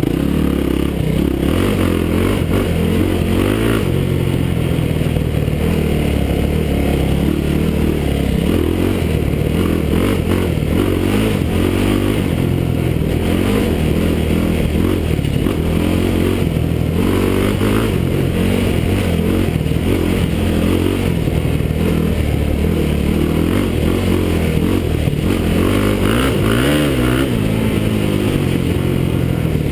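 Yamaha YFZ450 quad's single-cylinder four-stroke engine running under way, its pitch rising and falling as the throttle is opened and eased off.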